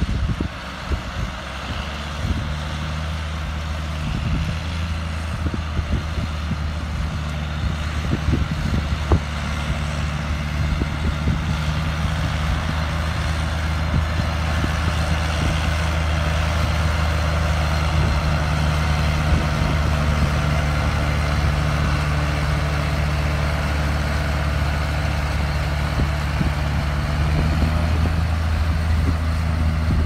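Two John Deere tractors' diesel engines running steadily under load, one pulling a trailed potato harvester and the other a trailer alongside it, growing slowly louder as they come closer. A few short knocks sound in the first several seconds.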